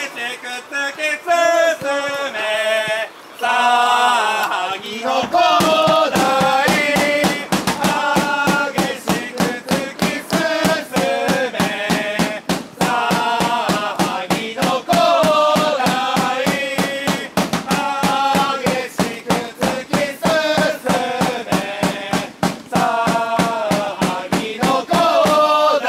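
Group of football supporters singing a chant in unison. A large drum joins about five seconds in and keeps a steady beat under the singing.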